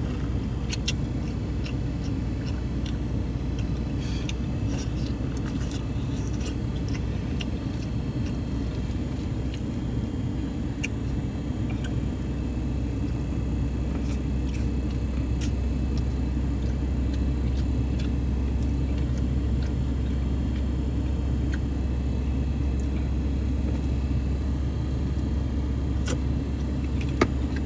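Steady low rumble of a running car with its air conditioning on, with scattered faint clicks and cracks from someone eating crab boil.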